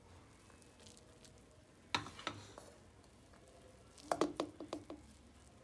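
Serving spoon knocking against a metal plate and the pressure-cooker pot while cooked rice is scooped out. There is one knock about two seconds in, then a quick run of short, ringing clinks near the end.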